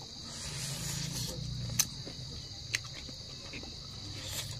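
Crickets chirring in a steady high drone, with two sharp smacking clicks from chewing a mouthful of roast chicken.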